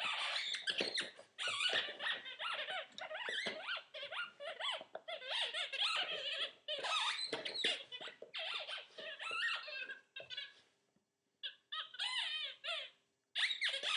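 A puppy working a squeaky rubber toy in its jaws, sending out rapid, near-continuous squeaks that slide up and down in pitch. About ten seconds in they stop for a second, then come back in short bursts.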